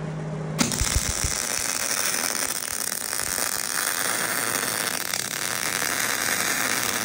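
MIG welding arc crackling steadily as a Miller Millermatic 185 wire-feed welder lays a bead on a cast-iron Dana 60 axle housing, starting about half a second in after a steady low hum.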